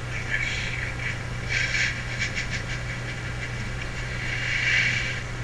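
Three bursts of hissing, the second with a few quick clicks in it and the last swelling near the end, over a steady low hum.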